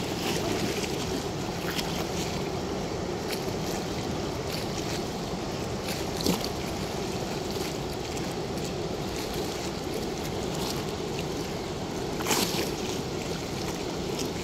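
Water rushing steadily through a river sluice gate, a continuous rushing noise, with two short sharp knocks or splashes about six and twelve seconds in.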